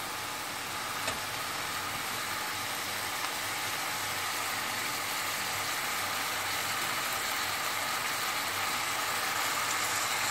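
Chicken pieces frying in oil and masala in an open pan, a steady sizzle that slowly grows louder, with two light clicks about one and three seconds in.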